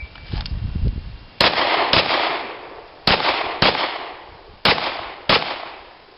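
Handgun firing six shots in three quick pairs, about half a second between the shots of each pair and a second or more between pairs, each shot trailing off in an echo: controlled pairs fired from the holster after a shot timer's start beep.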